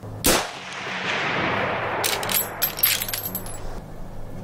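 A scoped hunting rifle fired once while being sighted in: a sharp, loud shot about a quarter second in, its echo rolling away over the next second or so. Around the middle comes a quick run of metallic clicks and clinks as the rifle's action is worked for the next round.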